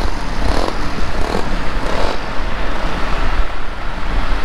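Steady road and wind noise from a moving vehicle on the road, a continuous low rumble with wind on the microphone.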